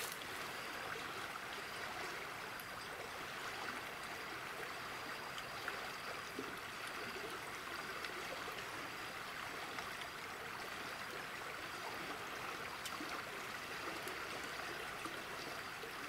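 A stream flowing steadily: an even, continuous rush of water.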